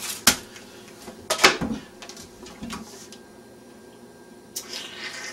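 A metal can with a straw being handled, giving a few clicks and knocks, the loudest about a second and a half in; near the end a noisy slurp as syrup is sucked up through the straw.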